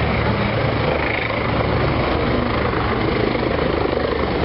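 Aircraft flying at an air show, its engine and rotor or propeller running loud and steady with a rapid beat.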